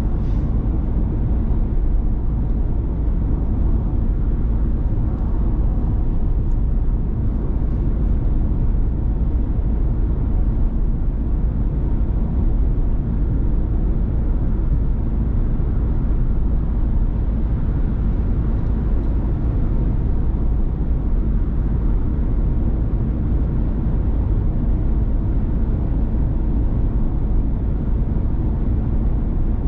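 Ford Transit Custom diesel van driving at a steady speed: an even, low rumble of engine and tyres on the road that does not change.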